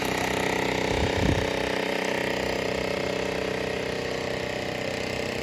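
A motor running steadily at an even pitch, with a brief low thump about a second in.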